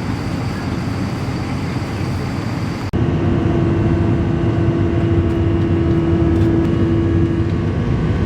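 Steady rumble of an airliner cabin in flight. After a sudden cut about three seconds in comes a louder steady rumble with a low held hum, which stops near the end.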